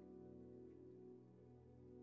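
Faint background music: soft held chords slowly dying away.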